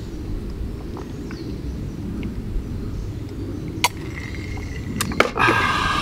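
Steady low outdoor rumble, with a glass beer mug set down on a wooden table: two light knocks about five seconds in, followed by a brief, louder breathy sound near the end.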